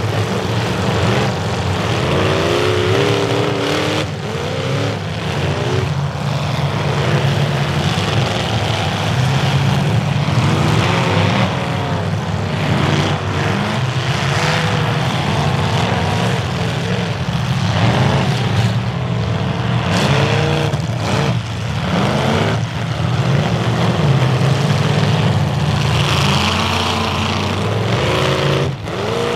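Several demolition derby cars' engines running hard, revving up and down over and over as the cars maneuver, with sharp crunching bangs of car-on-car hits several times.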